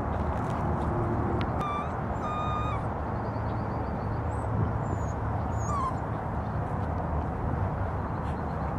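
Young Airedale Terrier puppies giving a few short, high whimpers, over a steady low background rumble.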